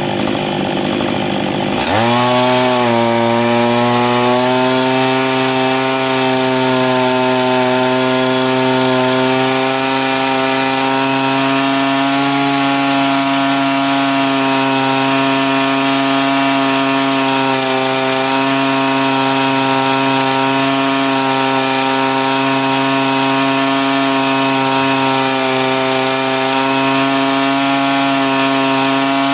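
Husqvarna 562 XP two-stroke chainsaw engine running flat out against a hydraulic brake, loaded down to about 7,000 rpm to imitate felling a tree on a back cut. About two seconds in its note changes abruptly, then settles into a steady, even drone that holds under the load.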